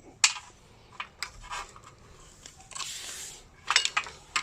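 Hands handling a car's plastic wiring connectors and harness: a few scattered sharp clicks and a short rubbing scrape a little before the end.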